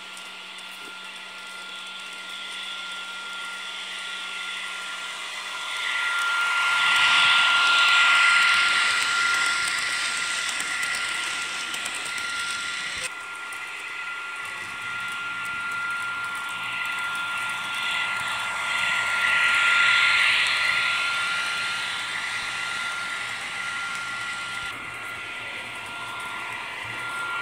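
HO scale model train running on its track, the rolling and motor noise rising twice to a loud swell as the train passes close by, over a steady high whine.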